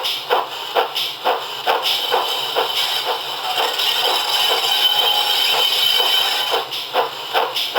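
Steam-locomotive exhaust beats from the sound decoder of a model GWR 45xx 2-6-2T tank engine, played through the model's small speaker: even chuffs at about two a second. Roughly two seconds in they fade under a steady hiss with a thin high tone, and the chuffs come back near the end.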